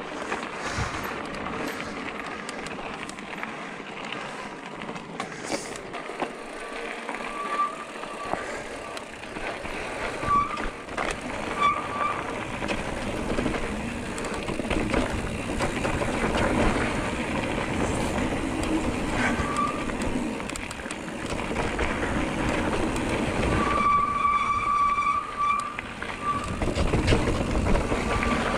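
Electric mountain bike ridden down a trail: a steady rush of tyre and wind noise with the bike rattling over the ground. A few short high squeals cut through, the longest lasting about two seconds near the end.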